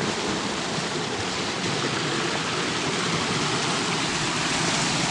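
River rapids: water rushing steadily over granite rocks.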